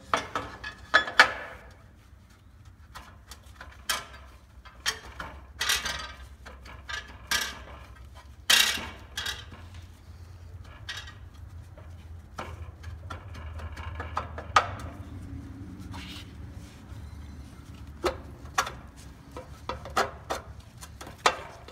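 Irregular metallic knocks, clicks and short scrapes as the steel tube of a heavy-duty upper shackle mount is worked into a freshly cut 2-inch hole in a truck's steel frame rail, a snug fit. A faint low hum runs underneath.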